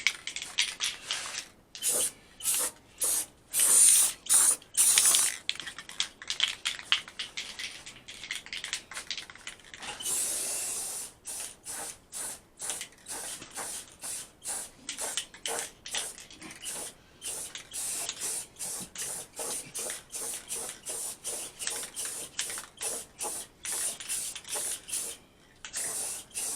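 Paint being sprayed in many short hissing bursts, two or three a second, with one longer steady pass about ten seconds in.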